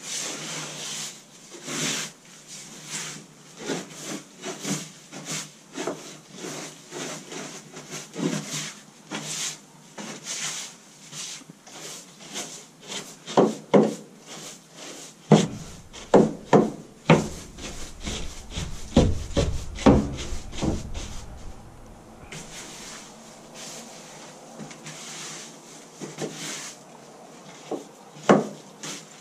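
A long-handled tool scraping and raking old bedding across a wooden chicken-coop floor in quick repeated strokes. Louder knocks of the tool against the wood come in a cluster about halfway through.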